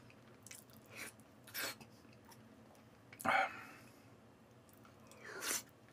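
Quiet eating sounds: a few short slurps as pumpkin porridge is sipped from a spoon, the loudest about three seconds in.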